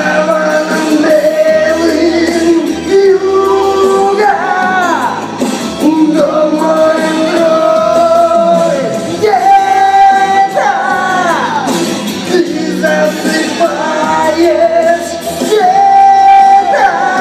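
Music: a song with a singer's voice over backing instruments, the voice holding long notes that fall in pitch at the ends of phrases.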